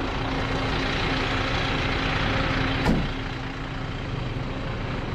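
Fire truck engine idling steadily, with one sharp knock about three seconds in.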